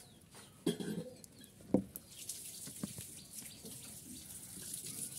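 Small plastic toy animal figures being handled and set down on a pile, with a few light knocks over a steady hiss.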